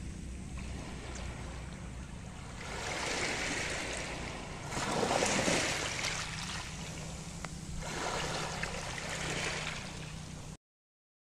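Small waves washing up onto a pebble beach, three swells of surf with the loudest about halfway through, over a steady low hum. The sound cuts off abruptly near the end.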